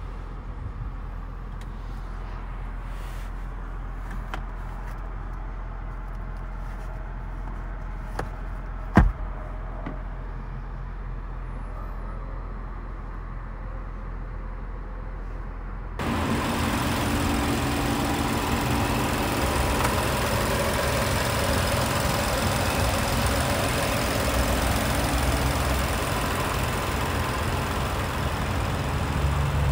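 2022 Audi SQ5 Sportback's turbocharged V6 engine running steadily, with a single sharp click about nine seconds in. About halfway through, the sound jumps abruptly to a louder, fuller steady engine sound.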